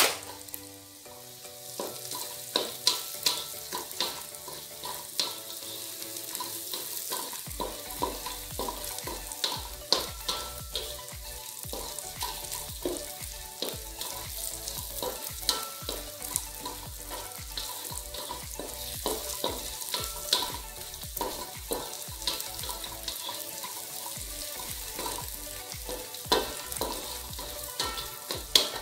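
Spice paste sizzling as it fries in oil in a wok, stirred with a spatula that scrapes and taps against the pan many times, irregularly.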